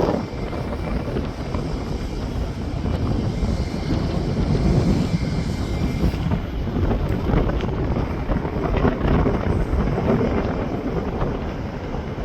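Steady low rumble of jet airliner engines, with wind buffeting the microphone.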